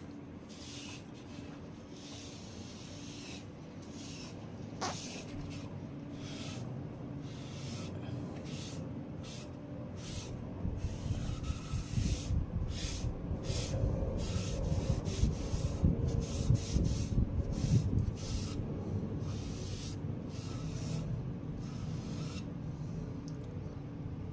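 A small sponge rubbed back and forth over the bare wooden face of a table tennis blade, spreading liquid sealer: a long run of short scrubbing strokes, closer together through the middle. A low rumble of hands and blade shifting on the tabletop grows from about ten seconds in.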